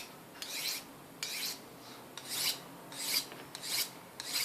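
A knife blade drawn repeatedly through a Victorinox pocket ceramic sharpener: about six short, scraping strokes at a steady pace, honing a dull, soft-steel blade.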